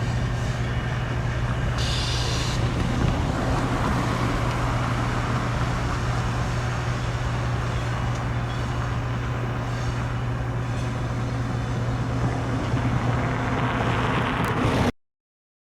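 Diesel freight train running steadily: a constant low engine hum over wide noise from the train. It cuts off suddenly near the end.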